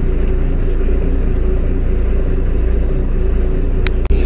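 A fishing boat's engine running steadily: a low rumble with a steady hum over it. There is a short click near the end.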